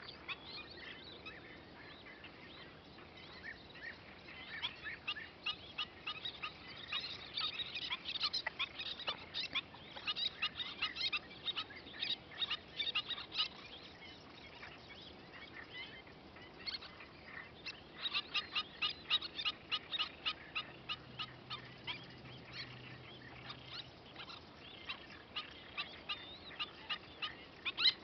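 Little terns calling: rapid runs of short, sharp, high chirps that come thick and fast in two busy stretches, about a third of the way in and again past the middle.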